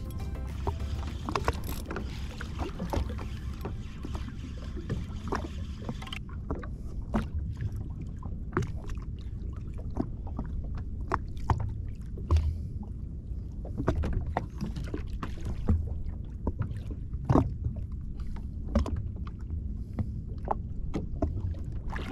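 Water lapping and slapping against the hull of a drifting Yamaha Waverunner jet ski, with irregular small knocks and splashes over a steady low rumble of sea and wind.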